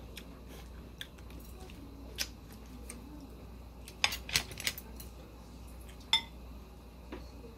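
Thin metal chopsticks clicking against a ceramic bowl and dishes: a few single taps, a quick cluster of clinks about four seconds in, and one sharper clink that rings briefly about six seconds in.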